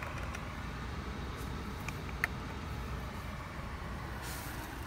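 2024 GMC Sierra Denali pickup running while parked, heard from inside the cabin as a steady low rumble with a soft hiss. A single click about two seconds in.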